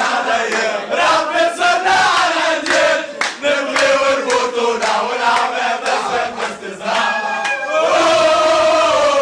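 A group of footballers chanting and singing together in a celebration, rhythmic and loud, breaking into a long held shout near the end.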